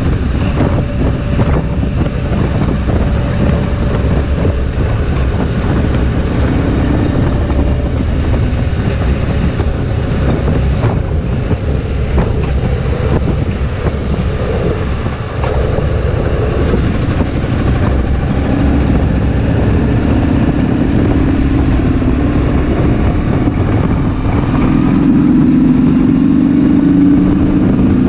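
Kawasaki VN2000 V-twin motorcycle riding at road speed, its engine drone heard under dense wind noise on the microphone. The engine note grows stronger and louder near the end.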